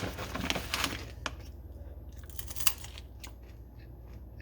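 Plastic snack packaging crinkling and rustling as it is handled, busiest in the first second, then only a few scattered clicks.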